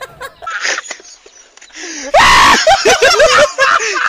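A person screaming: a sudden, very loud scream about halfway in, breaking into a quick run of short pitched cries.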